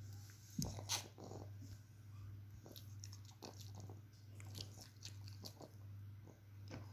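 Soft, scattered smacking and clicking mouth sounds, the loudest a little under a second in, over a steady low hum.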